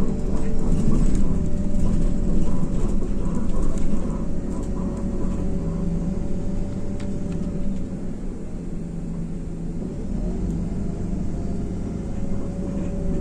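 Cabin sound of an IVECO Crossway LE bus under way: the Cursor 9 diesel engine running with road noise and rumble underneath. It eases off a little about four seconds in and again near eight seconds.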